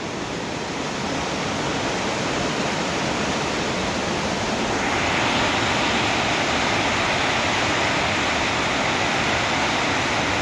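Heavy rain pouring down in a steady hiss, growing louder about halfway through.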